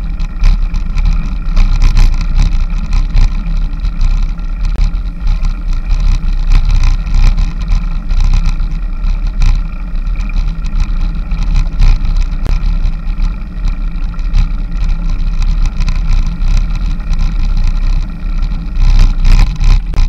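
Loud, steady rumble of wind and road vibration on a bicycle-mounted action camera while riding, with no clear separate events.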